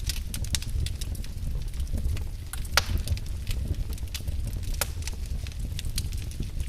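Wood fire crackling in a fireplace: a steady low rumble with irregular sharp pops and snaps, the loudest pop a little under three seconds in.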